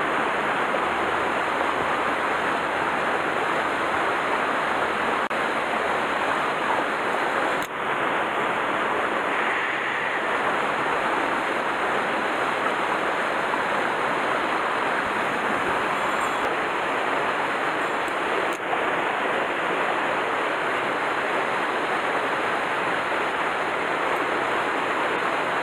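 Shallow mountain stream rushing steadily over rocks and small cascades.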